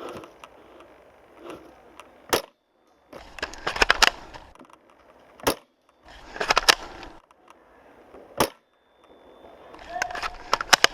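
Spring bolt-action airsoft sniper rifle, a JG Bar-10, firing three single shots about three seconds apart, each a sharp crack. Bursts of rapid clicking and rattling fill the gaps between the shots.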